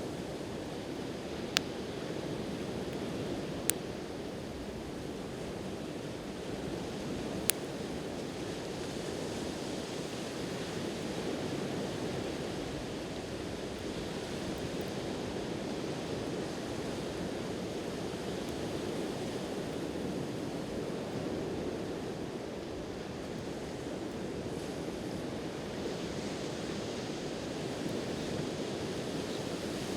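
Steady surf washing on the shore, with a wood fire popping sharply three times in the first eight seconds.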